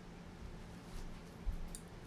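Quiet room with a steady low hum and two soft, low thumps, one about half a second in and a stronger one near the middle, like handling bumps.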